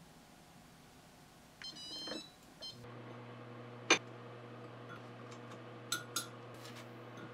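Samsung The Plate induction cooktop's touch controls beeping in a short run of tones, then the cooktop settling into a steady low hum as it starts heating a pot of water. A sharp click about four seconds in, and two lighter clicks near the end as metal tongs set dumplings into a ceramic steamer bowl.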